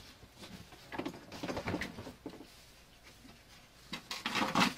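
Foam packing peanuts and a wooden pallet being handled by hand: short rustling and scraping, in two spells, about a second in and again near the end.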